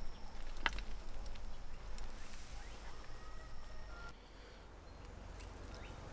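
Gloved hands squeezing and crumbling moist finished compost: faint rustling and a few soft clicks over a low rumble. It turns quieter about four seconds in.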